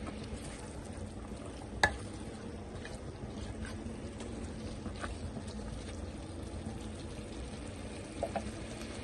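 Keema, potatoes and fresh peas being stirred and frying in a kadhai: a steady low sizzle with a few light clicks of the stirring spoon against the pan, one sharper click about two seconds in.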